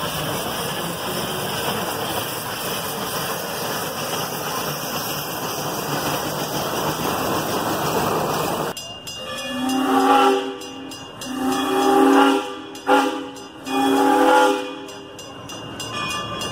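Steam locomotive hissing steam steadily. About nine seconds in, the sound cuts to its steam whistle blowing a chord of several tones in four blasts: two long, one short and one long.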